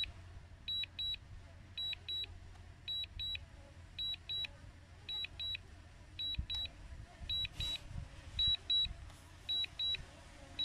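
Drone remote controller beeping in short high double beeps, about one pair a second, the alert that the DJI Mini 2 is in automatic return-and-landing. A faint low rumble lies underneath.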